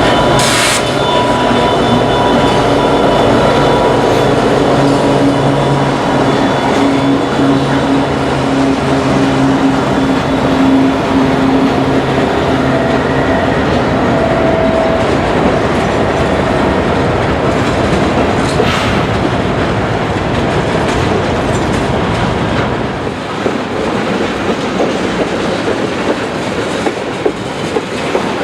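Canadian Pacific EMD SD70ACu diesel locomotive passing, its low engine drone fading about ten seconds in. Freight cars then roll by steadily, wheels clicking over the rail joints.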